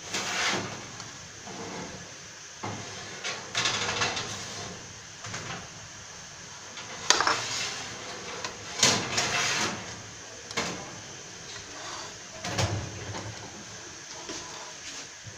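Spatula spreading orange glaze over a cake and scraping against its plate: a series of short, irregular scrapes and knocks.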